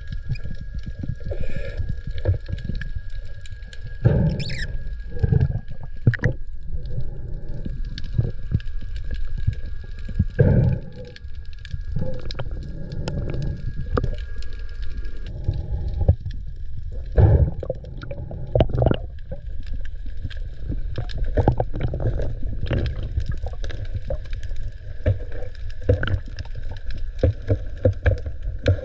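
Underwater sound through the camera's waterproof housing: a steady low rumble with irregular thuds and rushes of water noise. A faint, steady high tone runs through it and drops out for a few seconds near the middle.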